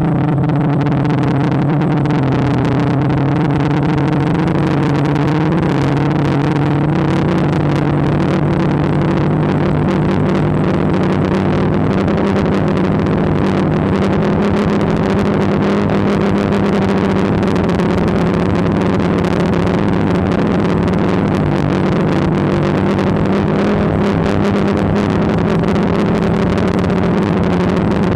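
DJI Phantom quadcopter's motors and propellers buzzing steadily at close range, heard from the camera mounted on the craft, with air rushing past. The pitch shifts slightly a few seconds in, then holds.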